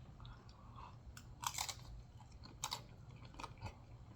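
A person chewing a mouthful of Doritos nachos close to the microphone, with several sharp, crisp crunches of the chips.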